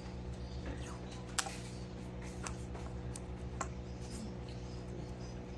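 Electrical tape being wrapped around a wire harness: faint scattered clicks and crackles of tape and wiring being handled, over a steady low hum.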